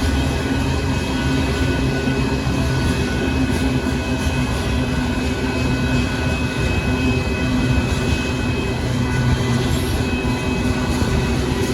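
Union Pacific gravel freight train rolling past at a steady pace, a continuous low rumble of the train on the rails with a faint steady high whine over it.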